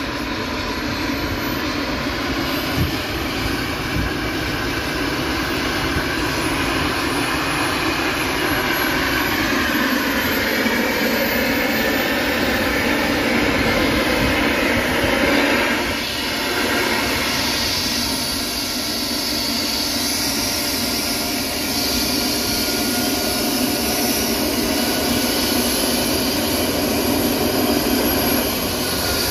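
Eurocopter EC135 medical rescue helicopter running on the ground with its main rotor turning: a steady turbine whine over rotor and engine noise.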